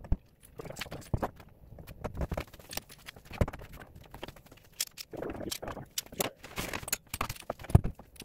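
Clamps being set and tightened along a board to press a glued wood edge band onto a plywood panel. There are irregular clicks and knocks of the clamps against the wood, with brief scraping and rustling.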